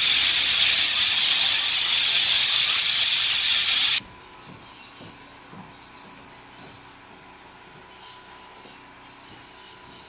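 Loud, steady hiss of a rainforest insect chorus, cutting off suddenly about four seconds in. After that, quiet forest ambience with faint scattered chirps.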